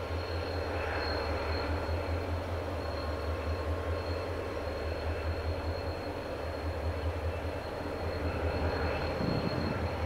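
Diesel locomotives hauling a ballast train, heard from a distance as a steady low rumble that swells slightly near the end as the train comes closer. A faint, thin, steady high tone sits above it.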